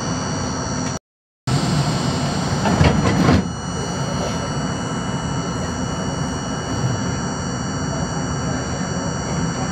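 R42 subway car standing at an elevated station, giving a steady hum with a few high, steady whining tones. The sound drops out completely for about half a second, a second in. A few louder knocks and clatter come around three seconds.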